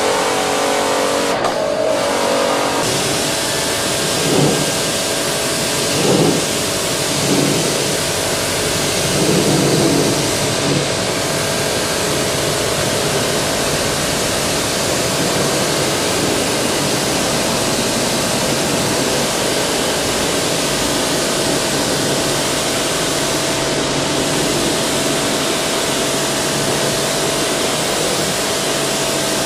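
NESCO high-pressure washer running, its jet spraying onto concrete slabs with a steady hiss over a steady motor hum. A few brief louder swells come between about four and ten seconds in.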